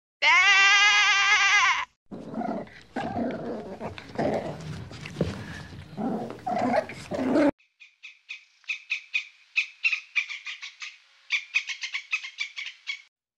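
A sheep bleats once, then a different animal gives harsh, irregular calls for about five seconds, followed by a quick run of short, high chirps or clicks for the last five seconds or so.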